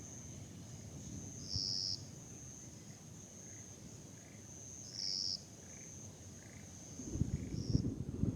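Summer-night insects trilling steadily at a high pitch, with a louder short call standing out twice. Near the end, wind starts buffeting the microphone with a low, gusty rumble.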